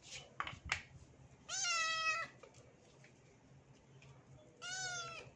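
Wet tabby kitten meowing twice while being bathed: two drawn-out cries about three seconds apart, the kitten crying in protest at the bath.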